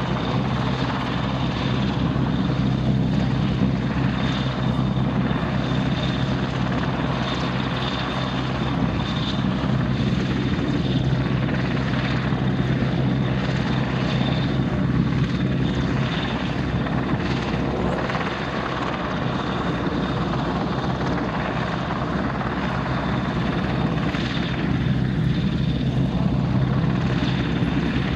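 Royal Navy AgustaWestland Merlin HM2 helicopter hovering close by: steady rotor thrum and engine noise from its three turboshaft engines, with a thin high whine over it.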